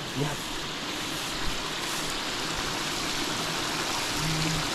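Water rushing steadily in an irrigation channel running high after days of rain, a constant even hiss.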